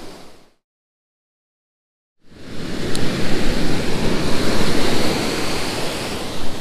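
Ocean surf washing up a sandy beach, a steady rush of breaking waves. The sound fades out to silence within the first half second and the surf comes back in a little after two seconds.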